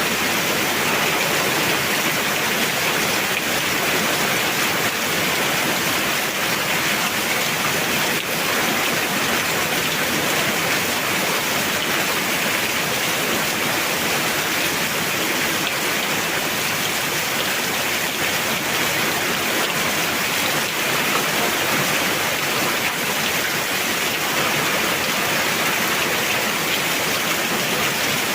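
Heavy rain falling steadily, a constant dense hiss of rain on surfaces.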